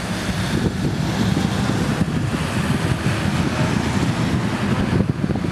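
Wind buffeting the camera's microphone: a loud, steady rough rumble with constant irregular flutter and a hiss above it.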